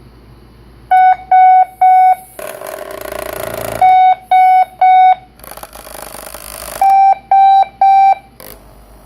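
Sonic Bomb alarm clock going off with loud electronic beeps in quick groups of three, three groups in all, starting about a second in. A rushing, hissing noise fills the pauses between the groups.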